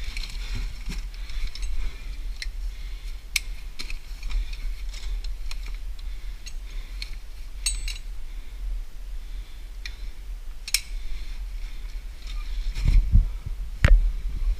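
Scattered light clicks and knocks over a steady low rumble, with a few heavier thumps and one sharp knock near the end.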